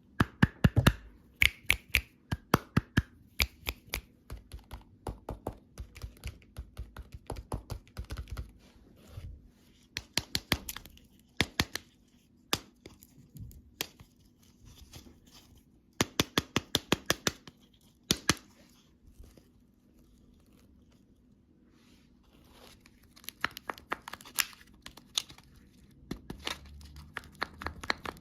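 Crisp clicks and crinkling crackles in quick runs with short pauses, from candy and its packaging being handled up close.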